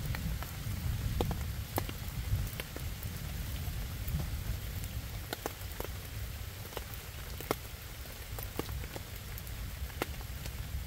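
Steady rain falling on leaves and wet ground, with scattered sharp ticks of drops landing close by and a low rumble underneath.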